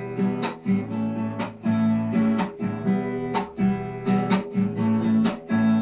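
Acoustic guitar strummed in a steady rhythm, playing chords between sung lines of a song.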